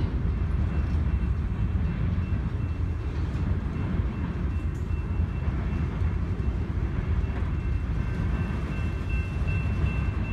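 Freight train of enclosed autorack cars rolling past, a steady low rumble of wheels on rails. A faint thin high tone runs through it, joined by a second one about eight seconds in.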